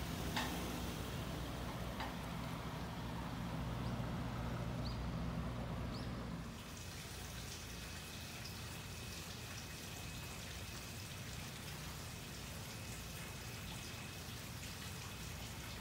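A bus engine idling with a low steady hum, which stops about six and a half seconds in. Then light rain pattering and dripping on paving, with a faint steady high tone.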